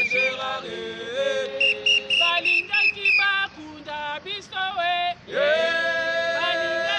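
Group of protesters chanting and singing, several women's and men's voices together, with a long held call starting about five seconds in.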